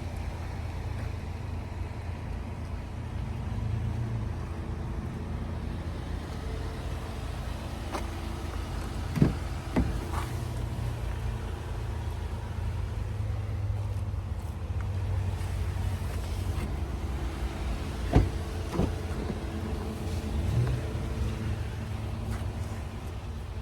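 A vehicle engine idling steadily, with two sharp knocks, one about nine seconds in and one about eighteen seconds in.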